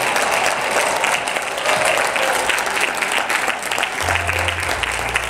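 Congregation applauding with music playing underneath; a low bass note comes in about four seconds in.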